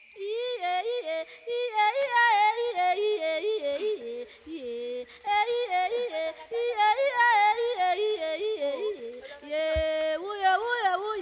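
Several voices singing together in yodel style, leaping sharply between notes and weaving separate interlocking lines, in the polyphonic manner of central African forest hunter-gatherer song.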